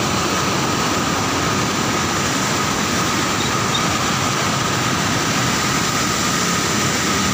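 Swollen river in flood after heavy rain, fast muddy water rushing past a weir with a steady, even rushing noise.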